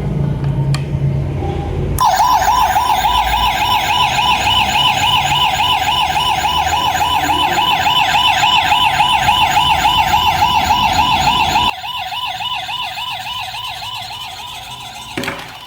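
Battery-powered siren sound module of a 1:32 scale diecast Toyota ambulance toy playing an electronic warbling siren, its pitch wavering rapidly up and down. The siren switches on about two seconds in and suddenly drops much quieter near the end, fading, with a click just before the end.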